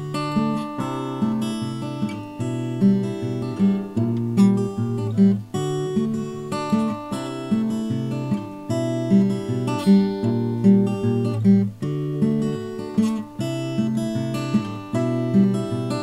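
Solo acoustic guitar playing an impromptu original piece: plucked notes and chords over a low bass line, in a steady repeating rhythm.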